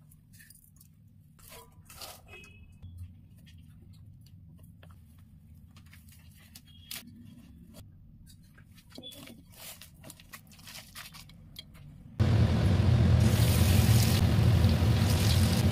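Faint scattered clicks and rustles of ingredients being handled. About twelve seconds in, these give way abruptly to loud, steady sizzling of pakora batter deep-frying in hot oil in a kadai, over a low rumble.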